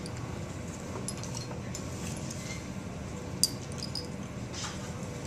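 Glassware being handled: a glass dropper tapping on glass gives one sharp clink about three and a half seconds in, with a few faint small clicks around it, over a steady room hum.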